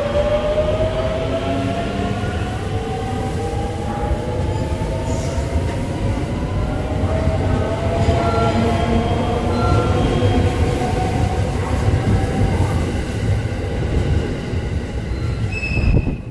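A JR West 681/683-series limited-express electric train running past over a steady rumble of wheels on rail. Its motor whine rises slowly in pitch as it picks up speed, and a brief high squeal comes near the end.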